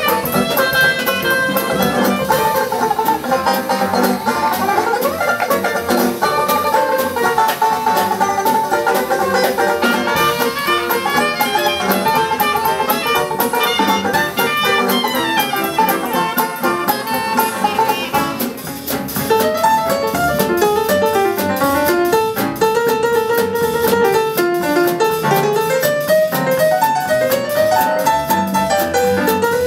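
Live traditional jazz band playing an instrumental passage: trumpet lead over a steady banjo, drum and upright-bass rhythm. About two-thirds of the way through the lead line changes to a lower melody.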